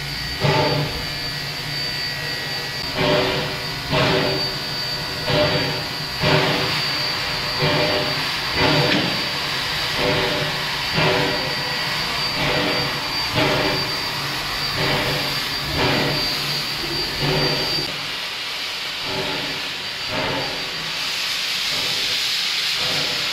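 Queensland Railways C17 class steam locomotive standing in steam, with a rhythmic puffing about once a second over a steady hiss and a thin high whistle. The puffing fades after about eighteen seconds, and a louder rush of steam starts a few seconds before the end.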